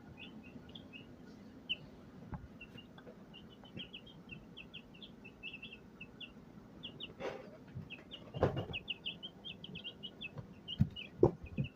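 Baby chicks peeping: a steady run of many short, high peeps. A few soft knocks and rustles come in the second half.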